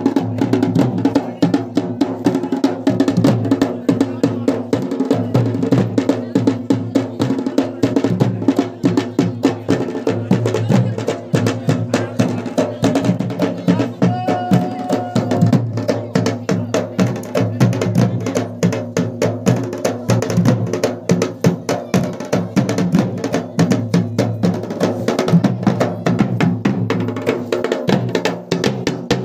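Garhwali dhol drum beaten in a fast, continuous rhythm of dense strokes over a steady low ringing, for the Pandav Nritya dance.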